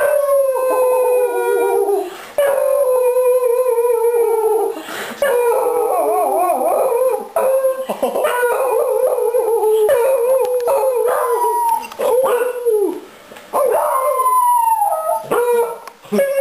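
Beagles howling together with a man howling along: long, wavering howls in several overlapping voices, with short breaks between them.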